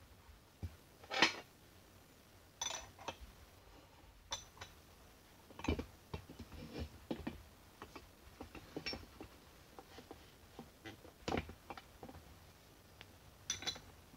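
Irregular small metal clinks and knocks as nuts are put on a Sheldon lathe apron by hand and tightened with a socket ratchet. The loudest knocks come about a second in, around six and eleven seconds in, and near the end.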